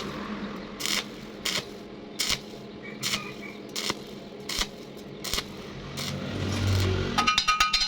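Metalworking noises: a run of short, sharp bursts, one every half second to a second, over a low steady hum. Music with a quick beat starts near the end.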